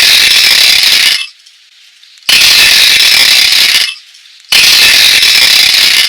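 A sound book's small speaker plays the same harsh, distorted sound effect three times, each about a second and a half long, with short gaps between.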